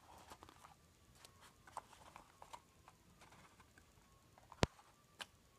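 Faint taps, clicks and rustles of a cardstock paper-craft matchbox being handled and turned by hand, with one sharp click a little over four and a half seconds in and a smaller one soon after.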